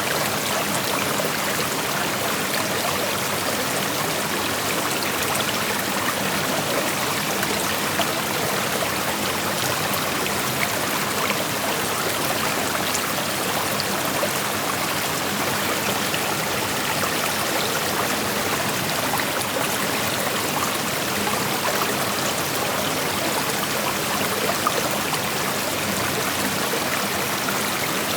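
Shallow creek flowing steadily over rocks: a constant rushing with small splashes and trickles scattered through it.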